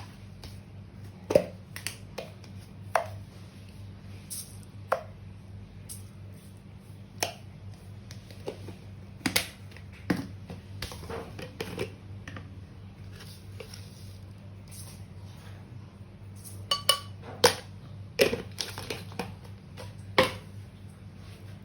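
Kitchenware clinking and knocking at irregular intervals, with a cluster of sharp knocks late on, over a steady low hum.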